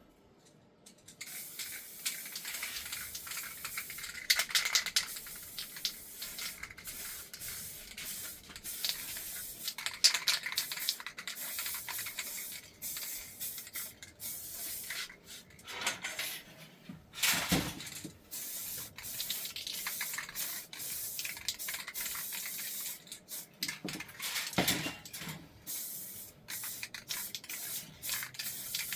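Hissing spray that keeps stopping and starting, with a few knocks in between, the loudest about a third and about halfway through.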